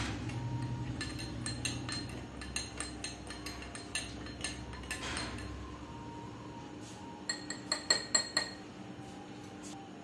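Metal spoon clinking against a drinking glass while stirring sugar into milk, with a quick run of louder clinks about eight seconds in.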